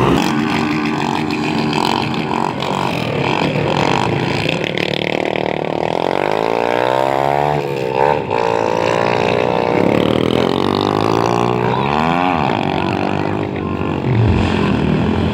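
Motorcycle engines revving and passing, their pitch swinging up and down as the throttle is opened and closed, with a big rise and fall near the middle and another about two-thirds of the way through.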